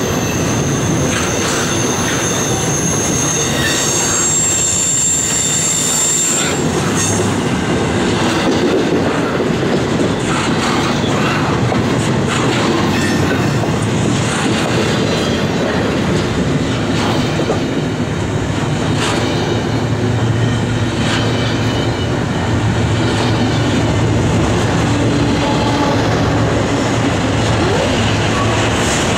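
Double-stack container freight train rolling past: steady rumble of steel wheels on rail with repeated clicks at the rail joints. A high, thin wheel squeal runs over the first six seconds or so.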